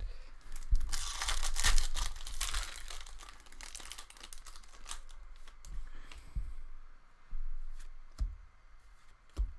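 A 2015-16 Upper Deck Series 1 hockey card pack being torn open by hand, its wrapper crackling for about two seconds, followed by lighter rustling and clicks as the cards are pulled out and handled.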